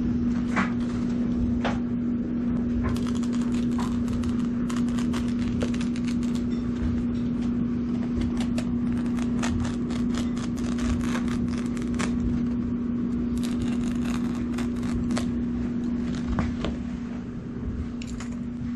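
Utility knife slicing through carpet backing along the edge, in many short rasping strokes, with the cut strip scraping as it is pulled away. A steady low hum runs underneath throughout.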